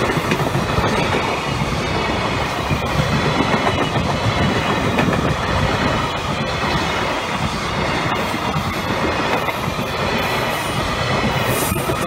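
Freight train of loaded container flatcars rolling past close by: a steady loud rumble, with wheels clacking over the rail joints.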